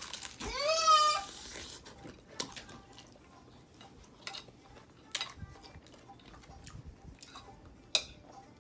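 A cat meows once, a rising call about a second long. A few light clicks and taps follow.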